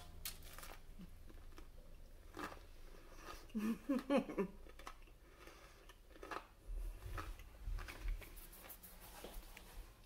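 A person biting into and chewing a crispy fried dough pastry: irregular crunchy clicks and crackles, with a louder cluster of mouth sounds about four seconds in.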